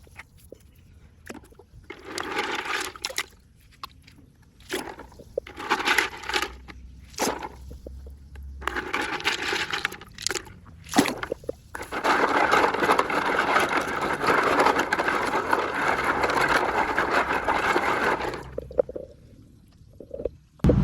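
Decorative rocks being poured out and spilling onto mulch. There are several short pours, then one long steady pour of about six seconds in the second half.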